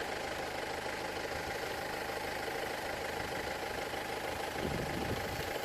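Land Rover Freelander 2.0 TD L-series diesel engine idling steadily.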